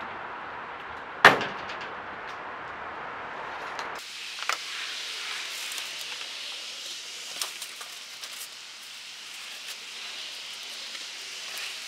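A single heavy thud about a second in, as the boxed evaporative cooler is set down on the wooden pallet work area. After a sudden change in the background, light clicks and taps sound over a steady hiss.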